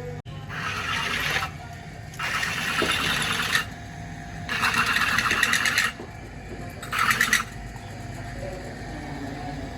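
Rapid buzzing, rattling workshop tool run in four short bursts of about one to one and a half seconds each, the last one shorter.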